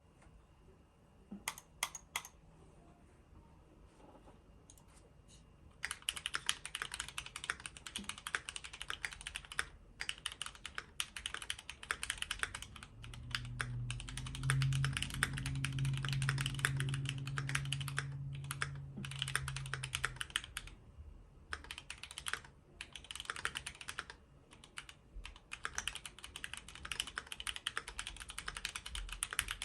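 Typing on a Keychron Q6 mechanical keyboard with Gateron G Pro Brown tactile switches and Hyekit XDA PBT keycaps, a thocky keystroke sound. First a few single keystrokes, then fast continuous typing from about six seconds in, with brief pauses. A low hum runs under the typing through the middle stretch.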